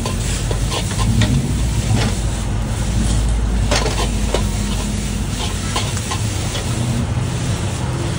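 Metal spatula repeatedly scraping and knocking against a wok as rice noodles are stir-fried, with oily sizzling over a steady low rumble.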